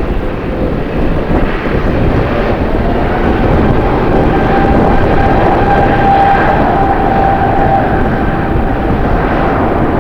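Jet airliner's engines: a loud roar with a steady high whine on top, swelling towards the middle and easing off near the end.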